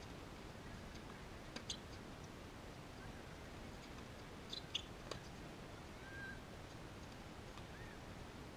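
A tennis rally heard from a distance: a few sharp pops of the ball off racket strings and the hard court, the loudest about halfway through, over a steady faint hiss. Two short high chirps come near the end.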